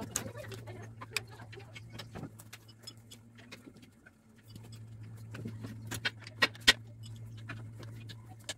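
Metal hand tools clinking and clicking irregularly against a stripped air-cooled single-cylinder engine block as a wrench is worked on its front end. Two sharp, loud clacks come about six and a half seconds in. A steady low hum runs underneath.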